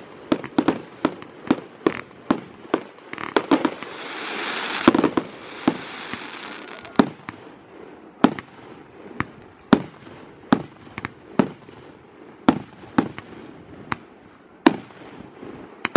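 Fireworks display: a rapid run of sharp bangs from aerial shells bursting, often two or three a second, with a spell of hissing between about four and six and a half seconds in.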